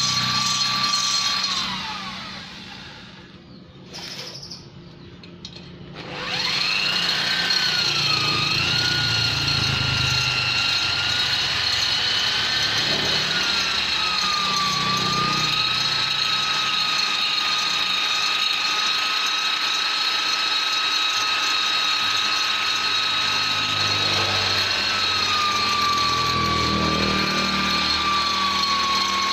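High-speed rotary grinder with a carbide tuner bit whining steadily. It winds down about a second and a half in, stops for a few seconds, then spins back up and runs on, its pitch dipping now and then as the bit is pressed into the metal to shape a Vespa engine's ports.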